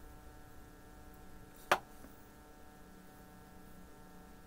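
Faint steady electrical hum made of several tones, with one sharp click about two seconds in.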